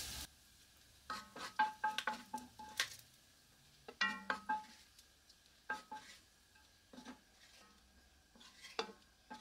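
Wooden spoon knocking and scraping against the inside of an enamelled cast-iron Dutch oven, stirring the bacon fat: scattered short knocks in small clusters, several ringing briefly.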